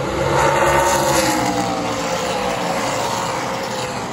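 A pack of Super Late Model stock cars racing past, their V8 engines running at speed. The engine note is loudest about a second in, then sinks slowly in pitch and fades a little as the pack goes by.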